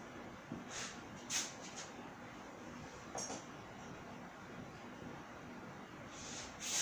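Marker pen writing on a whiteboard: a few short, faint strokes at irregular intervals.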